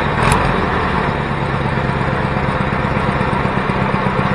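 Homemade 424cc inline-twin engine, made of two Predator 212 single-cylinder engines coupled together, running at a steady speed.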